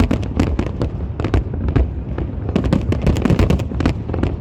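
Fireworks display going off: a rapid run of overlapping bangs and cracks, several a second, over a continuous low rumble.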